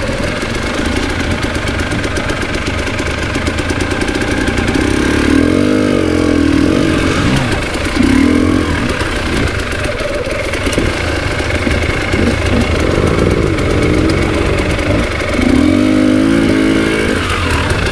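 KTM 300 EXC TPI two-stroke single-cylinder enduro motorcycle engine running under load, its revs rising and falling repeatedly with the throttle.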